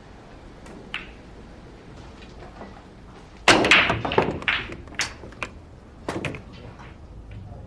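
Pool balls being struck with a cue: a light tap about a second in, then a run of sharp clacks as the balls hit one another and the cushions, the loudest first, in a shot that pots the nine ball.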